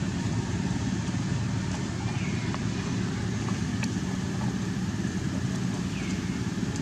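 Steady low rumble of outdoor background noise, with a few faint short high calls that bend downward, about two and six seconds in.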